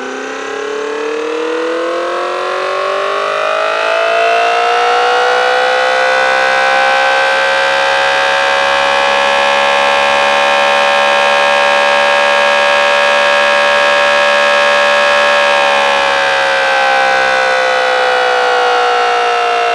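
Homemade Allertor-style siren with an 8/12-port rotor, spun up to about 4500 RPM and sounding two tones together: the pitch climbs over the first six seconds, holds a steady wail, then begins to wind down about sixteen seconds in. Its sheet-alloy horn ring sits pressed against the stator, which holds back the airflow.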